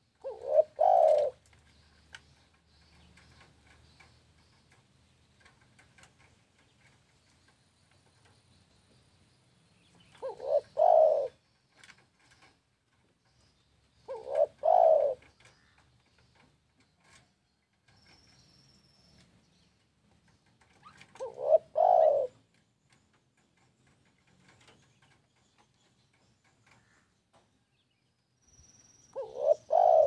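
Spotted dove (tekukur) cooing: five short phrases of a few notes each, about a second long and spaced several seconds apart.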